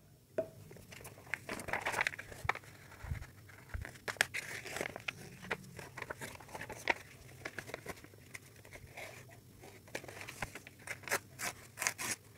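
A sheet of paper being folded and creased by hand into a paper boat: irregular crinkling and rustling with sharp crackles, and a couple of soft low thumps about three seconds in.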